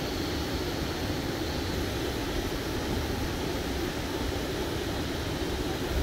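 Steady, unbroken rush of mountain stream water flowing and spilling over into a rock pool.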